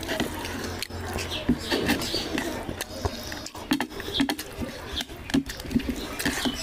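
Wet, open-mouthed chewing and lip smacking of curry and rice, with the squelch of a bare hand mixing oily rice and gravy on a plate; many short sharp clicks and smacks come in quick succession.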